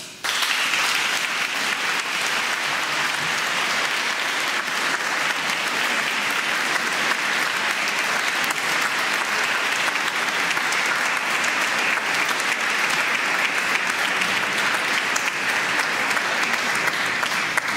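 A church congregation applauding: many people clapping together in a large reverberant room, breaking out suddenly and then holding steady.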